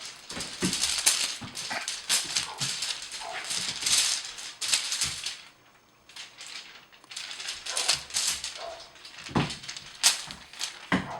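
Rattling and scuffling of a cat playing with a toy, in quick irregular bursts, with a pause of about a second around the middle.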